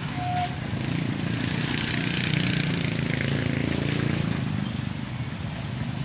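Road traffic: a passing car's engine hums steadily, and its tyre hiss swells through the middle and then fades.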